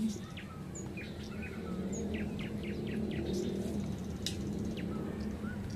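Birds chirping in short, scattered falling notes over a steady low hum, with a brief splash about four seconds in as a hooked patin catfish thrashes at the water's surface.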